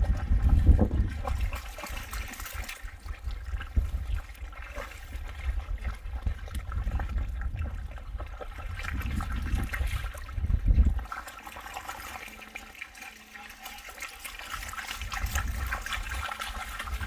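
Dogs wading and splashing through shallow muddy water, with sloshing and dripping from their legs.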